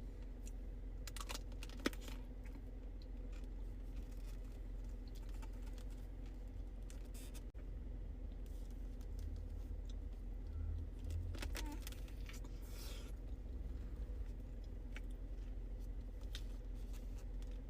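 Scattered light clicks and taps of a utensil and pastry being handled for eating, over a faint steady hum.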